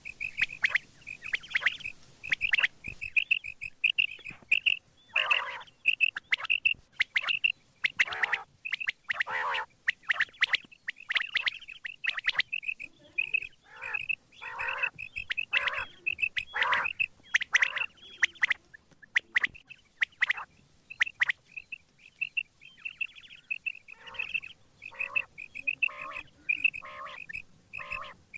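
Quail calling over and over: quick series of short, sharp, high notes, several a second. The calls thin out for a few seconds past the middle, then pick up again.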